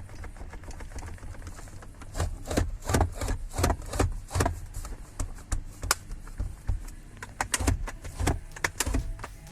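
Irregular clicks and knocks of hands handling the Chevrolet Bolt's plastic armrest parts, over a low rumble.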